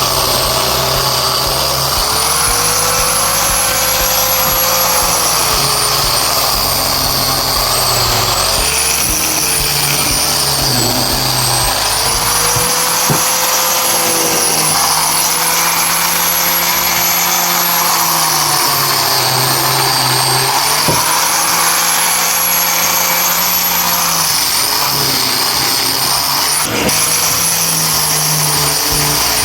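Electric power tool motor running continuously with a high whine whose pitch sags and recovers every few seconds as the tool is loaded in the wood.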